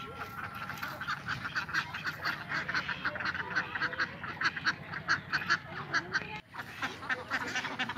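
A flock of domestic ducks quacking, with many quick, overlapping calls. The sound cuts out for a moment about six and a half seconds in, then the quacking resumes.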